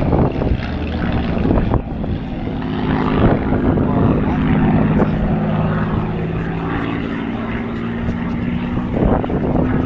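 Propeller-driven aircraft flying past, its piston engine running with a steady low note.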